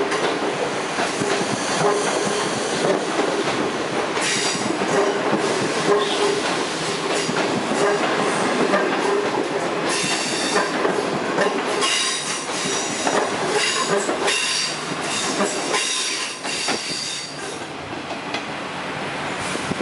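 Passenger coaches of a non-stop train rolling past at speed, their wheels rumbling and clattering over the rail joints and points, with high-pitched wheel squeal coming and going. The sound eases off near the end as the last coach draws away.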